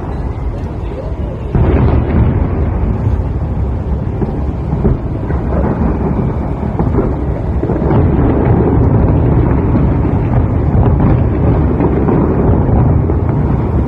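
Fireworks display: a dense, continuous run of booms and bangs rumbling into one another, getting louder about a second and a half in.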